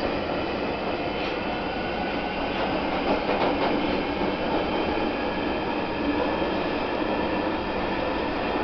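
Running noise inside a London Underground 1995 stock train car: a steady rumble of wheels on rail with a steady whine over it, and a few clicks a second or three in.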